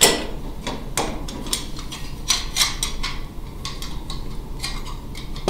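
Metal mounting-bracket parts clinking and knocking against each other and on a wooden bench as they are picked up and handled. The clicks and clacks come irregularly, the loudest right at the start.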